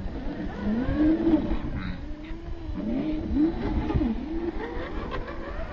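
Scale RC rock crawler's electric motor and geared transmission whining as it climbs over rocks. The whine rises and falls in pitch with the throttle, over a low rumble of tyres and chassis on rough ground.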